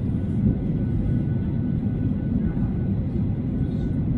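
Steady low rumble of cabin noise inside a Boeing 737-900ER in the climb, its CFM56-7B turbofans running at climb power, with a faint steady high whine over it.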